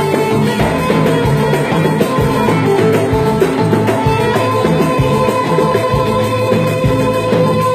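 Moroccan jebli folk band playing a medley: a violin held upright on the knee and bowed, with a plucked lute, keyboard and drums keeping a steady beat.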